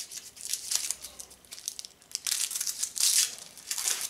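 Crinkling and tearing of a firecracker pack's wrapping as it is opened by hand. The noise comes in irregular scrapes and rips, loudest from a little after two seconds to about three seconds in.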